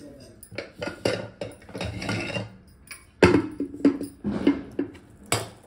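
Steel dishes and utensils clinking and knocking in an irregular series of a dozen or so sharp strikes, some of them ringing briefly.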